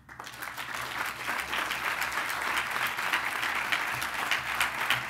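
Audience applauding, rising in quickly and holding steady.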